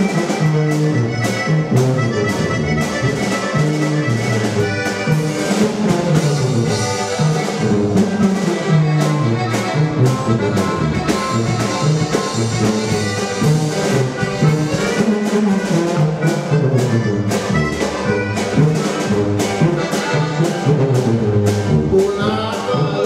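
Live norteño band with tuba playing an instrumental passage: accordion carrying the melody over a tuba bass line, with guitar and a drum kit keeping a steady beat.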